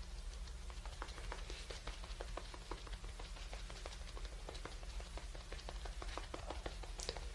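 Makeup sponge patting against the skin of the face, a quick run of light, moist taps, several a second, as base makeup is pressed in.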